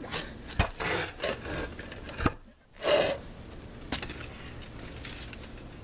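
Hand tool scraping and spreading roofing cement on the roof underlayment beside the concrete tiles, in irregular strokes, with two sharp knocks and a brief pause partway through.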